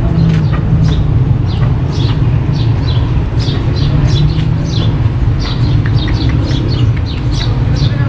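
Small birds chirping over and over in quick, short downward chirps, over a loud steady low rumble.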